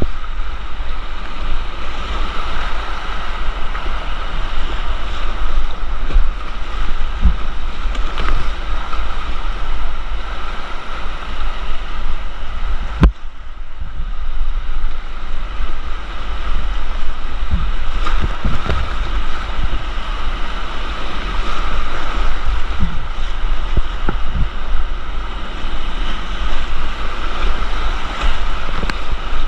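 Rushing creek whitewater around a kayak, with wind buffeting the microphone into a steady low rumble. Scattered short knocks, one sharp one about halfway through.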